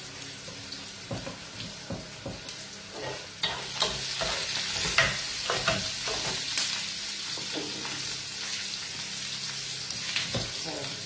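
Chopped vegetables sizzling in a frying pan, stirred with a wooden spoon that scrapes and knocks against the pan. The sizzling grows louder about three and a half seconds in, with a run of stirring clicks through the middle.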